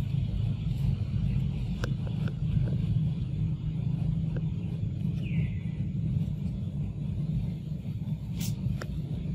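Steady low rumble, with a few faint clicks, a brief falling chirp about five seconds in and a sharp tick near the end.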